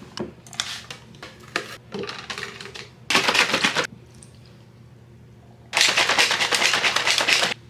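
A protein shake being mixed: two bursts of rapid, dense rattling, one about a second long and a longer one of nearly two seconds, with light clicks and knocks before them.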